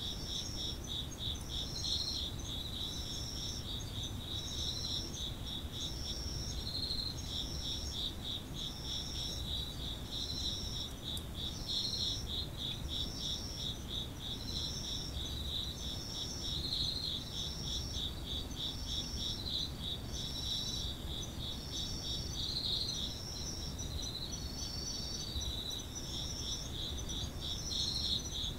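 Japanese autumn insects singing together: a steady, rapidly pulsing trill with a higher chirp repeated about once a second above it.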